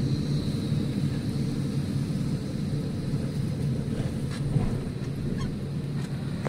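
Low, steady rumble of a car's engine and tyres heard from inside the cabin while driving slowly, with a faint high steady whine above it.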